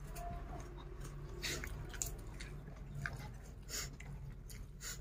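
Close-up chewing and mouth smacks of a person eating fried chicken and rice by hand, with about five short sharp clicks spread through, over a faint steady low hum.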